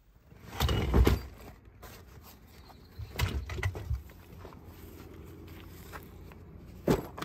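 Fishing tackle bag and gear being lifted out of a car and handled: a few knocks and clunks with fabric rustling, the sharpest about a second in and again near the end, over a low rumble.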